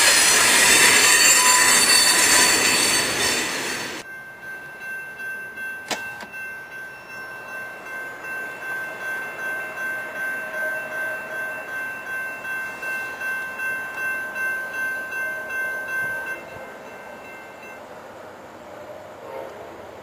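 A freight train rolls past a grade crossing with wheel squeal until its last car clears about four seconds in. The crossing's warning bells then ring steadily, about two strikes a second, and stop about sixteen seconds in as the gates go up.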